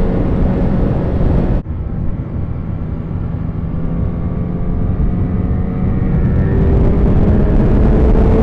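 Yamaha FZ1 inline-four motorcycle engine running at road speed with heavy wind rush on the helmet-mounted camera. The sound changes abruptly about a second and a half in, then the engine pitch rises steadily over the last few seconds as the bike accelerates.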